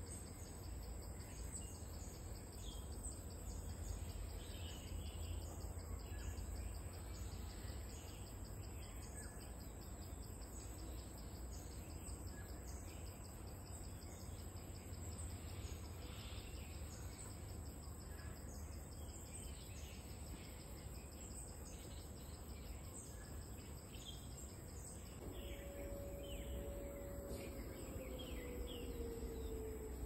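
Forest insect chorus, a steady high-pitched drone pulsing about once a second, with scattered bird chirps and a low rumble underneath. Near the end a faint tone slides slowly down in pitch.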